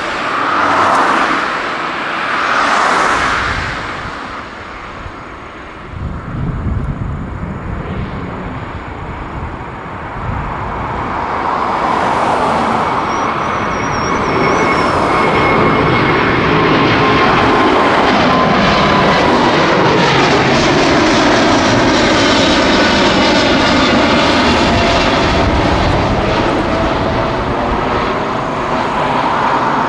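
Boeing 787-9's Rolls-Royce Trent 1000 turbofans at takeoff power as the jet lifts off and climbs out past the listener. The engine noise swells into a steady, loud rumble with a thin whine that slides down in pitch as the aircraft passes.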